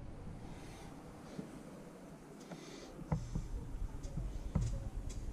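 Quiet room tone with a few light metal clicks and taps from hands handling parts in an open engine's valvetrain, one about three seconds in and another a second and a half later.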